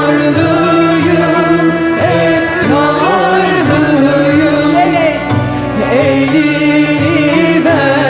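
Mixed men's and women's choir singing a Turkish song over instrumental accompaniment, with a bass line moving underneath.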